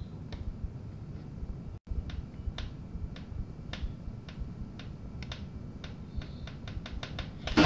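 A run of short, sharp clicks over low hum and hiss from a lo-fi cassette recording, spaced out at first and coming faster near the end. The sound cuts out completely for an instant about two seconds in.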